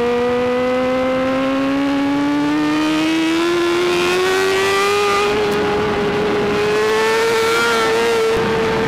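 BMW S1000RR's inline-four engine pulling hard under acceleration, its pitch climbing smoothly for about five seconds and then holding high, with a brief dip near the end.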